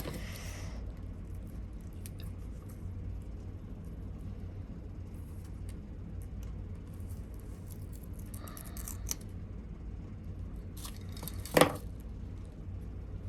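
Product packaging being handled and opened: scattered light clicks and rustles, a short scratchy stretch about eight seconds in, and one sharp knock near the end.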